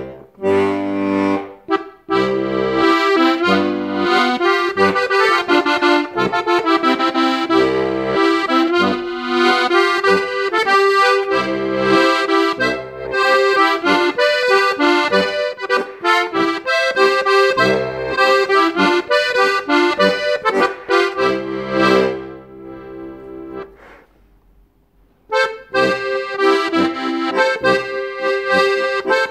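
Schober III D three-row, two-voice Styrian button accordion (Steirische Harmonika) in G-C-F tuning being played: a melody over recurring low bass notes. About 22 seconds in, the playing fades out into a pause of a few seconds, then the tune starts again.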